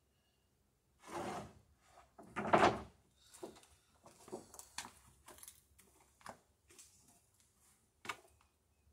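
Long wooden boards knocking and scraping against each other as one is laid down on top of a plank on sawhorses. Two heavier knock-and-scrape sounds come about a second and two and a half seconds in, the second the loudest. Lighter taps and rubbing follow as the board is shuffled into place, with one sharp knock near the end.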